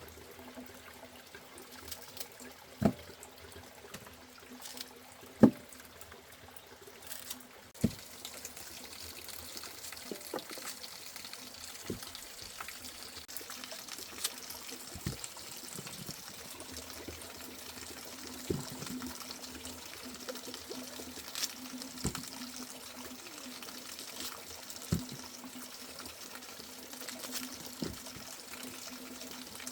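Water trickling and pouring, with scattered short knocks.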